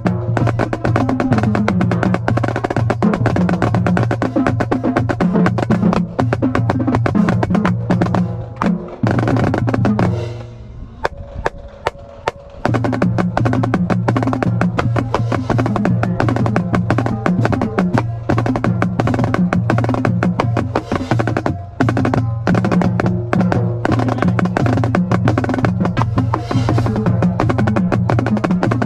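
Marching snare drum played in fast rolls and patterns over a song with a steady bass line. The drumming and the bass break off for about two seconds around ten seconds in, leaving a held tone, then carry on.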